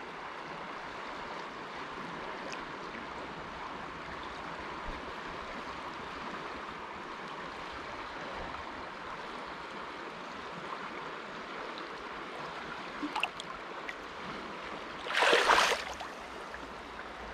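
Steady running-water noise of a shallow river. About fifteen seconds in comes a loud splash lasting about a second, as the released barbel kicks away through the shallows and stirs up the mud.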